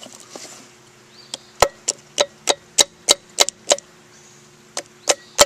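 Hammer striking metal, seating a part in a Honda 250EX ATV's rear axle assembly. A run of about eight sharp, ringing blows, roughly three a second, starts about a second and a half in. After a brief pause come three more near the end.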